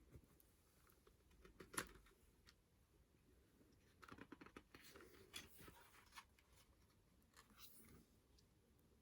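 Faint handling of a photobook and its paper: a sharp click about two seconds in, then a run of soft rustles and crackles around the middle.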